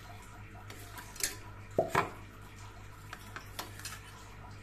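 Mint leaves being pushed by hand into a stainless steel mixer-grinder jar, with a few light knocks and clinks of the steel vessels, the loudest about two seconds in, over a steady low hum.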